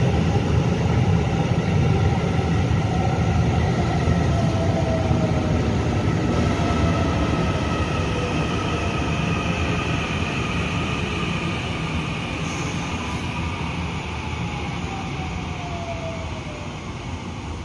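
Taiwan Railway EMU900-series electric multiple unit braking into the platform: its traction motors whine in several tones that fall slowly in pitch as it slows, over a rumble of wheels on rail that slowly fades.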